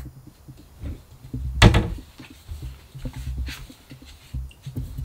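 Footsteps on a floor as someone walks out of a small room, a run of dull thuds, with one sharp louder knock a little under two seconds in.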